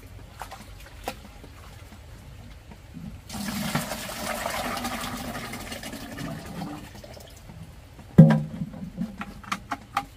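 Wet pig-feed mash poured and scraped out of a large metal pot into a plastic bucket, a sloshing pour lasting about three seconds. About eight seconds in comes a loud knock, the loudest sound, followed by a few lighter clicks.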